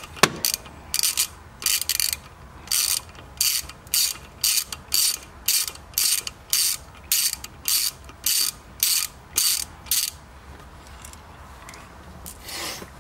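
Hand socket ratchet clicking in quick back-strokes, about two a second, as the shifter's mounting bolts are backed out; the clicking stops about ten seconds in.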